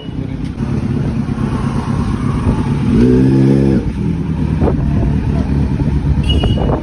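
Kawasaki Z900's inline-four engine running through an SC-Project aftermarket exhaust at low speed. It gives a short rev blip about three seconds in, and two short sharp cracks follow later.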